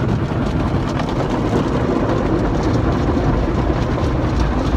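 Automatic tunnel car wash running over the car, heard from inside the cabin: a steady rush of water spray and wash machinery with a heavy low rumble.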